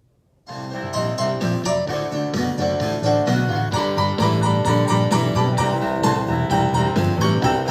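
Music played back through a portable Bluetooth speaker in a sound test: keyboard or piano melody over a strong bass line, starting abruptly after a brief silence about half a second in.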